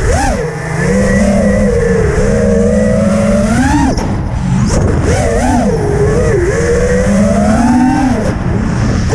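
FPV quadcopter's electric motors whining, the pitch swooping up and down with the throttle: a slow climb, then a sharp drop about four seconds in and again near the end. A steady low rumble of wind runs underneath.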